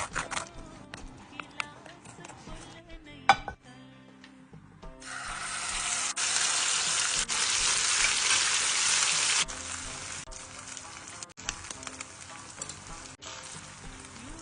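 Food frying in a hot pan. After a few clicks and knocks, a loud sizzle starts about five seconds in. It drops back to a quieter sizzle about four seconds later and carries on with light clicks of stirring.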